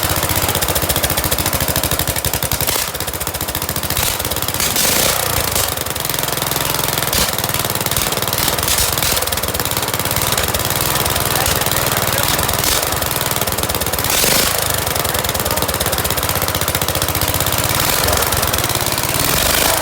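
Small engine on a rebuilt Murray running loud through a straight-pipe exhaust, with rapid even firing pulses and a few brief surges in speed. It is the engine's first run after the rebuild.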